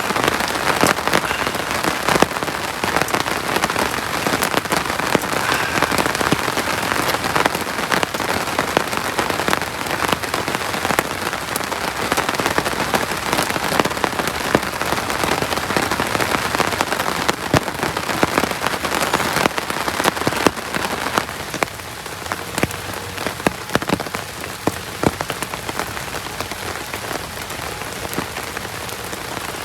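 Heavy rain falling steadily: a dense hiss full of sharp drop impacts. It eases a little about two-thirds of the way through.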